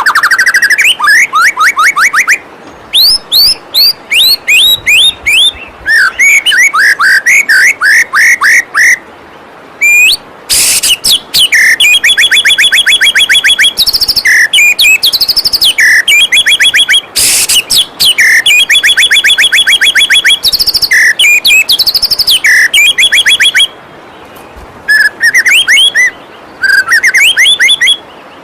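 White-rumped shama (murai batu) singing a loud, fast, varied song: phrases of rapidly repeated whistled notes and trills broken by short pauses. A steady hiss of flowing waterfall water runs beneath.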